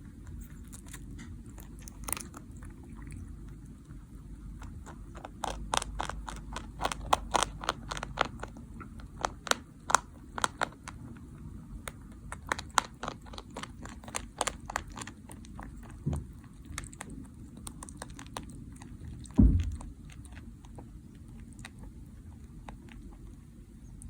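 Mini Rex rabbit crunching and chewing food, a quick run of sharp crunches that comes and goes. There is one low thump about four-fifths of the way in.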